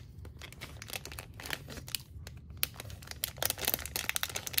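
Crinkling of a resealable plastic pen package as the pens are slid out of it, in irregular crackles that get busier near the end.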